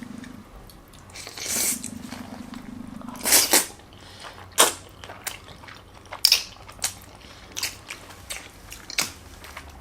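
Close-miked eating of spaghetti and meatballs in cheese sauce: wet chewing and slurping with a string of sharp little smacks and clicks, the loudest slurp about three and a half seconds in.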